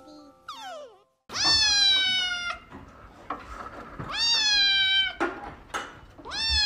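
Gray-and-white kitten meowing loudly three times, each meow a long, high call that rises at the start and sags slightly before it stops. The third meow is still going at the end.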